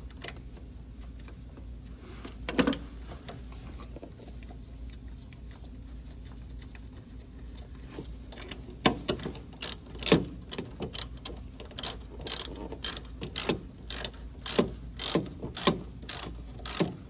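Hand ratchet clicking as bolts are run in. After several fairly quiet seconds with a single click, the clicking starts about nine seconds in and settles into a steady run of about two clicks a second.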